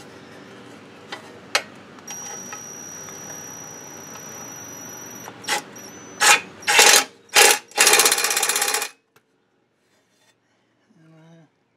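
Ryobi cordless impact driver driving a bolt up through an aluminum A-arm/CV boot guard: several short bursts, then a burst of rapid hammering about a second long that stops abruptly about nine seconds in.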